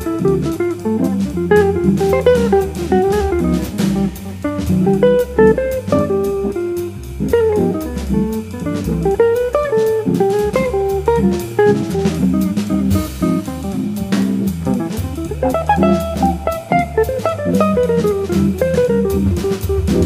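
Jazz organ-group recording: an electric jazz guitar plays running single-note lines over a walking Hammond organ bass line and a drum kit keeping time on the cymbals.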